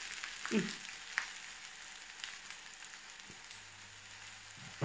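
Shrimp and pineapple fried rice sizzling gently in a nonstick frying pan: a steady soft hiss with scattered small crackles. A brief low sound about half a second in.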